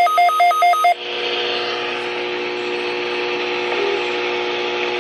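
Weather alert radio beeping rapidly, about five electronic beeps a second, which cut off about a second in. A steady radio hiss with a low hum follows, as the weather radio broadcast channel comes through before the required weekly test announcement.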